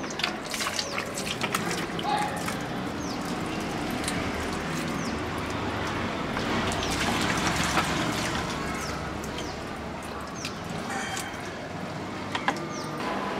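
Water splashing and sloshing in a plastic bucket as raw green mangoes are washed by hand, with a cluster of splashes in the first couple of seconds.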